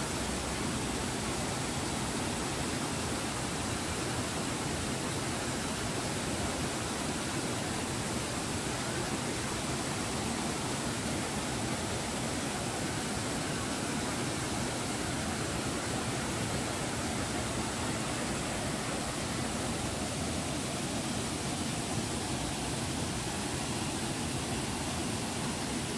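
Steady, even rush of water from a small waterfall: a thin, spread-out flow falling about ten metres onto rock.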